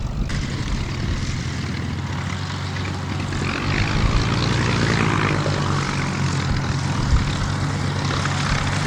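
Piston engine of a Second World War propeller fighter running steadily, with a low layered hum that grows a little louder about three and a half seconds in.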